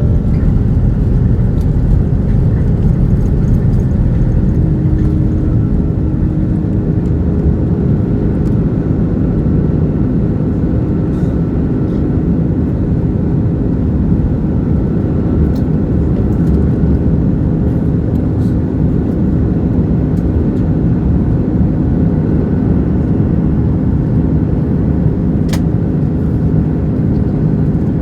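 Steady engine and airflow noise heard inside the cabin of an Airbus A330-300, a deep, even hum with a faint steady whine above it and no change in pitch.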